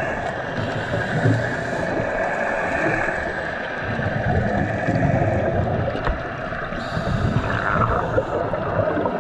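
Underwater sound of scuba divers breathing through their regulators: exhaled air bubbling and gurgling in a steady, uneven wash.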